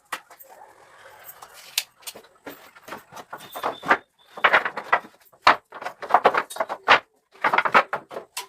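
A series of irregular sharp knocks and clatters, sparse and faint at first and coming in louder clusters from about four seconds in.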